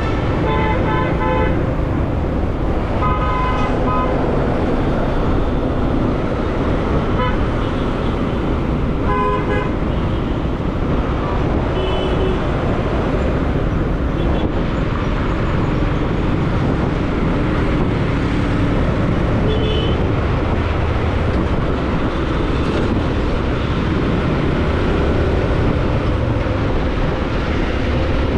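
Wind rushing over the microphone and road noise of a motorcycle riding in traffic, with vehicle horns honking in short blasts several times, most of them in the first half.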